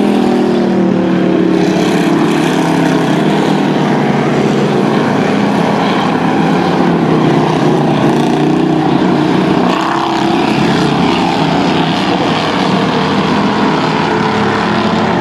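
Several strictly stock race cars' engines running at racing speed on a dirt oval. Their overlapping engine notes rise and fall as the cars go through the turns.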